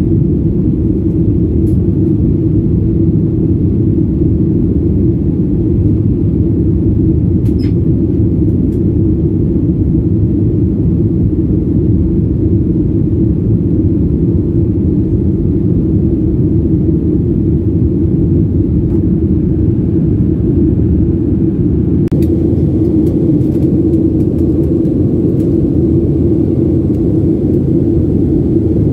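Steady low rumble of engine and airflow noise inside the cabin of a Boeing 737-800 climbing after takeoff, with a steady hum running through it. A few faint ticks can be heard near the end.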